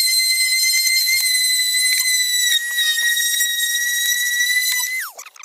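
Handheld power tool spinning a 1000-grit sanding disc to wet-sand a plastic headlight lens: a steady high-pitched motor whine. About five seconds in it is let off and the pitch falls as it spins down.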